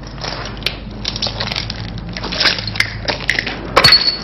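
Rubble and broken glass crunching and crackling irregularly, with a louder crunch near the end.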